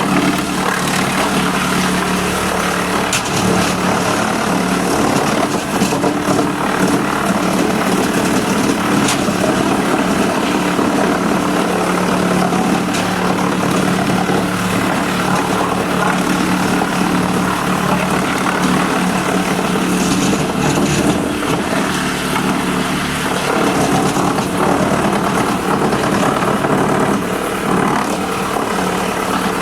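Engine of a 1280 wood chipper running steadily at constant speed, with a few brief sharp clicks over the hum.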